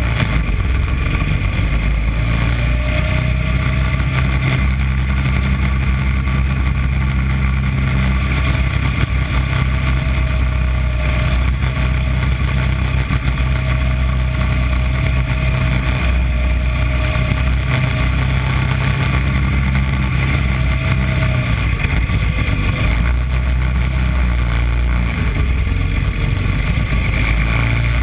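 Small engine of a mini Corvette race kart running steadily at racing speed, heard on board, with a constant rushing noise over it and a faint whine that wavers in pitch.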